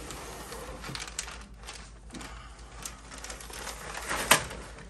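Cardboard box and paper packaging rustling and scraping as a large packed bag is pulled out of the box, with a sharp knock a little over four seconds in.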